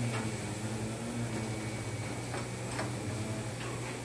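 A few faint light clicks of a metal hand tool touching the handlebar fittings, over a steady low hum.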